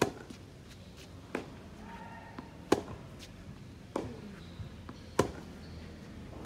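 Tennis balls struck by rackets in a baseline groundstroke rally, about one hit every 1.3 seconds. Loud hits from the near player alternate with fainter ones from the far end, with softer ticks in between.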